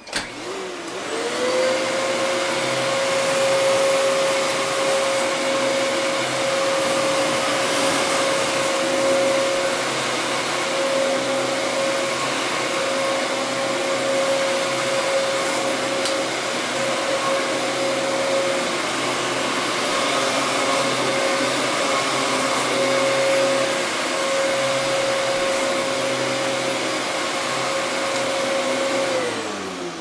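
A vacuum cleaner is switched on. Its motor whines up to speed within about a second, runs steadily with a high whine, then is switched off near the end and winds down.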